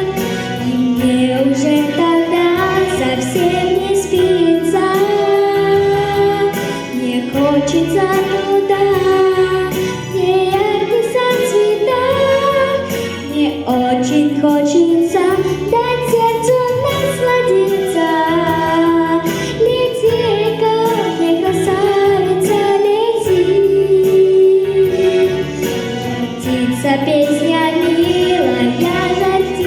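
A female voice singing a melody with vibrato over a musical backing track.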